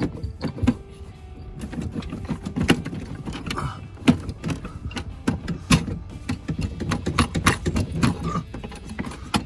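Irregular metal clicks and knocks of car wiper arms being worked loose and handled by hand.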